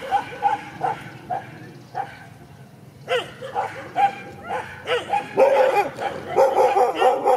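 Dogs barking at each other in a confrontation: a run of short, quick barks at first, a brief lull, then from about three seconds in louder barks that overlap and crowd together, densest near the end.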